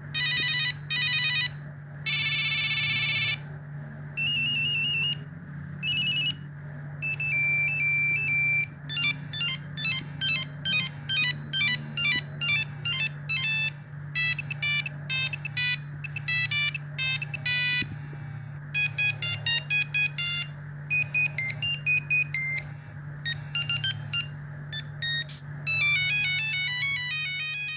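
An old Nokia mobile phone playing its built-in monophonic beeping ringtones one after another, each a short tune separated by a brief gap, over a steady low hum.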